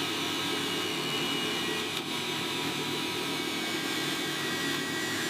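Steady factory machine noise: an even whirring hiss with a few faint high whines held steady over it.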